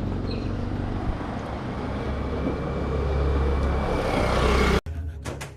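Street traffic with a motor vehicle's engine rumbling close by, growing louder with a faint rising whine. Near the end it cuts off abruptly into music with regular drum hits.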